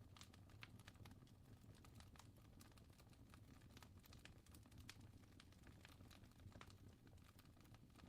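Fire crackling faintly: irregular sharp pops and snaps over a low, steady rumble.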